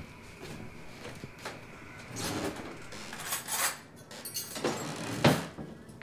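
Kitchen handling sounds: cookware and a drawer or cupboard being worked, a few short scrapes and clinks, then a sharp knock about five seconds in, the loudest of them.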